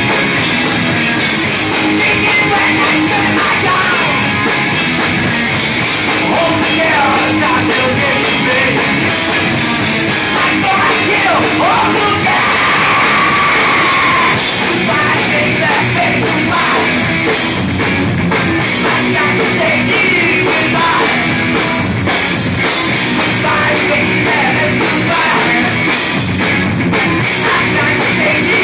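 Live rock band playing loud: distorted electric guitar over a drum kit.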